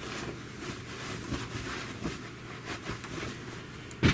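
Faint handling noises: soft rustles and light knocks as hands move things about, with one sharper tap near the end.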